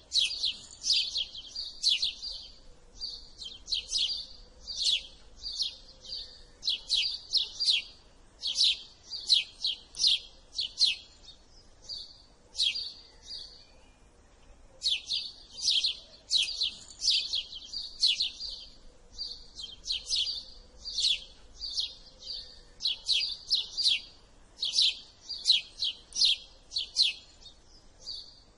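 House sparrow chirping: short, sharp, repeated chirps in quick runs of several at a time, with brief pauses between runs.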